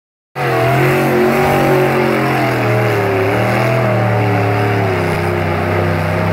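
Mud truck's engine running hard at high revs under heavy load as it pushes through a mud hole, its pitch held fairly steady with slight wavering.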